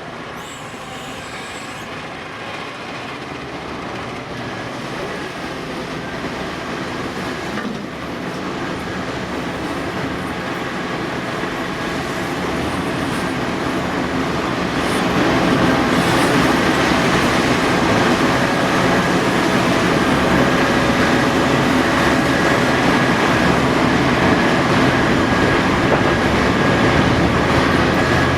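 Heavy diesel earthmoving machinery running at a steady drone, growing louder over the first half and then holding, with a steady whine from about halfway.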